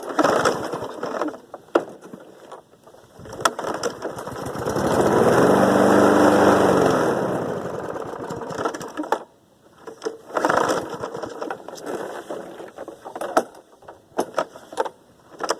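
Small engine of a 2007 Snapper self-propelled lawn mower being cold-started while frozen: knocks and rattles, then the engine briefly catches and runs for a few seconds around the middle before fading out, followed by more knocks and short bursts.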